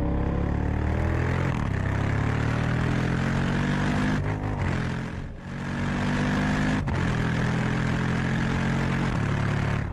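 Engine sound effect running steadily, its pitch shifting slowly up and down, with a short dip about five seconds in.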